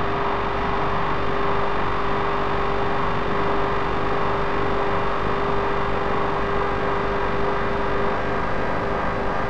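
Synthesized electronic drone from a Max data-sonification patch: a steady, dense, grainy wash with one held tone running through it, all at a constant level.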